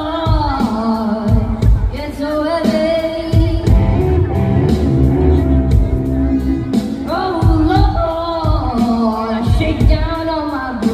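Live blues performance: a voice singing long, bending phrases over instrumental backing with a steady beat, with a break in the singing midway before the next phrase comes in.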